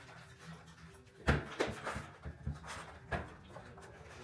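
A handful of short, irregular rubbing and scraping noises from a bicycle tire being worked by hand onto its rim, starting about a second in.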